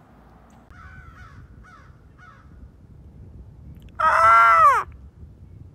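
A crow cawing: a few faint calls in the first couple of seconds, then one loud, drawn-out caw about four seconds in that falls in pitch at its end.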